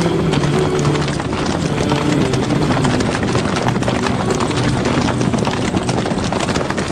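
Many horses galloping, a dense, continuous clatter of hooves, with low voices calling underneath.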